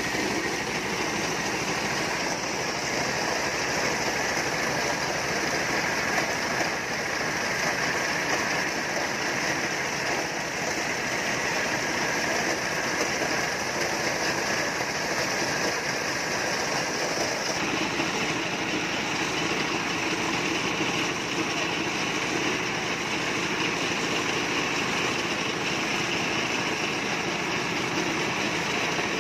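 Engine-driven mobile corn sheller running steadily under load, a loud continuous mix of engine and spinning threshing drum as corn cobs are fed through it. Its tone shifts abruptly about two-thirds of the way in.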